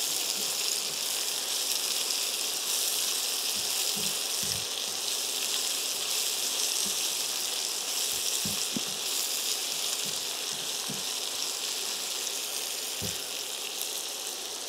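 Chopped onions with garlic and green chillies sizzling steadily in a little hot oil in a stainless steel pan, frying until translucent, while a silicone spatula stirs them, with a few soft knocks of the spatula against the pan.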